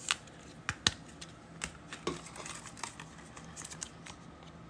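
Trading cards being handled and flipped through, a series of light, irregular clicks and flicks of card stock, with a few close together near the end.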